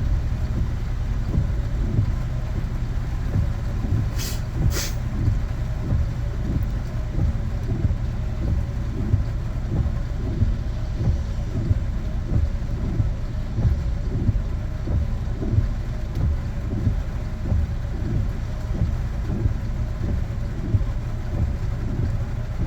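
Road noise inside a moving car on a rainy day: a steady low rumble, with two short sharp clicks about four and a half seconds in.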